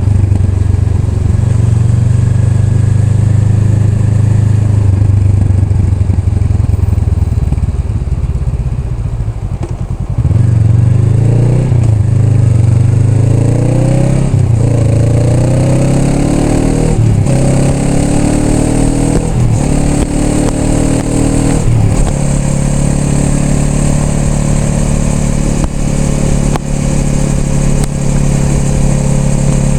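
Honda Rebel 500's parallel-twin engine under way. It runs steadily and eases off for a moment. It then accelerates up through the gears, the pitch climbing and dropping back at each of several upshifts, and settles into a steady cruise.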